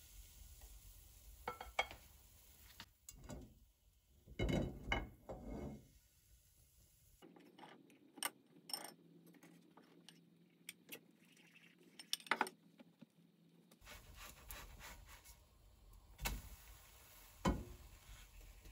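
Quiet kitchen handling noises while cooking a crepe: scattered clinks and knocks of a mixing bowl, utensils and a slotted spatula against a frying pan. There is a cluster of louder knocks about four to six seconds in, and sharp clicks near the end as the spatula goes under the crepe.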